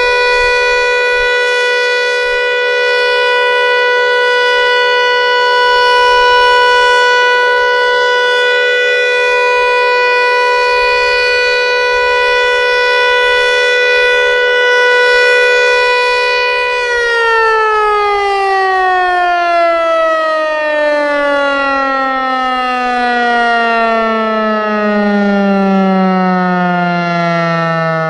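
Federal Signal Eclipse 8 electromechanical tornado siren sounding its steady alert tone. About two-thirds of the way in it cuts power and winds down, its pitch falling steadily: the end of the 3-minute alert test signal.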